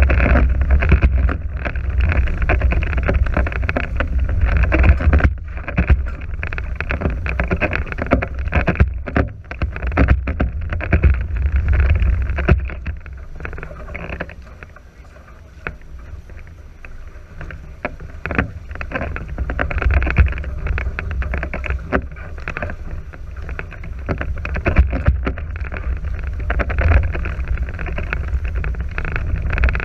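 Wind buffeting the microphone over the rush and splash of water along the hulls of a NACRA 5.0 beach catamaran under sail. The rush eases for a few seconds near the middle and then builds again.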